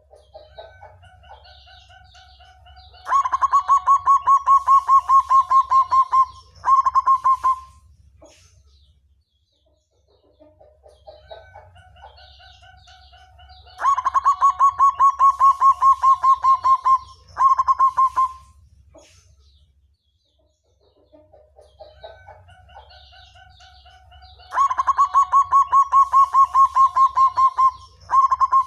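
Black zebra dove (perkutut) singing three songs about eleven seconds apart. Each song opens with soft low coos, runs into a loud, fast, rolling trill for about three seconds, pauses briefly and ends with a short roll. A steady low hum sits underneath.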